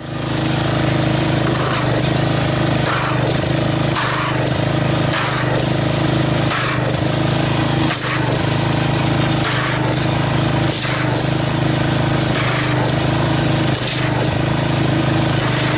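Pressure washer running with a steady, loud drone while its wand jets water into a bucket of car-wash soap, churning it into thick foam. The sound comes on right at the start and holds level.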